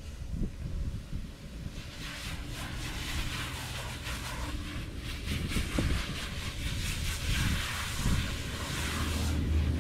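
Garden hose spray hissing as it soaks a dog's long black coat, starting about two seconds in, over a low rumble of wind on the microphone.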